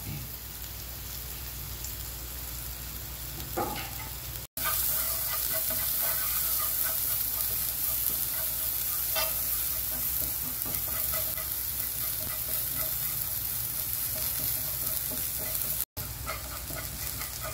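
Minced garlic and chopped scallions sizzling in hot oil in a nonstick frying pan as they are stirred with chopsticks, frying until fragrant. The steady sizzle cuts out for an instant twice, about four and a half and sixteen seconds in.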